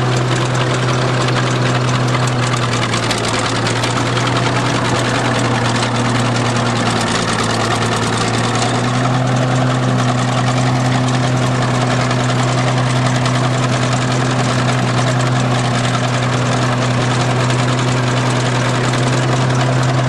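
Engine idling steadily at a low, even speed. Its pitch sags slightly a few seconds in and picks back up around eight seconds in.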